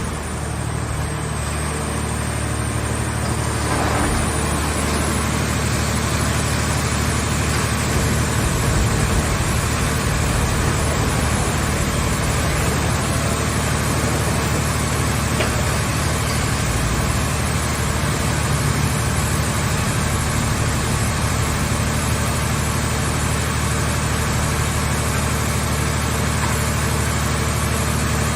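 Scrap car-body baler's engine running steadily under hydraulic load, a low, even drone with mechanical noise over it, a little louder from about four seconds in.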